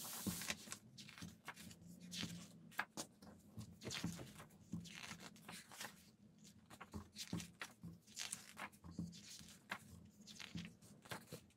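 Thick glossy pages of a large photobook being turned and handled: a string of paper swishes and rustles, with soft ticks and taps in between.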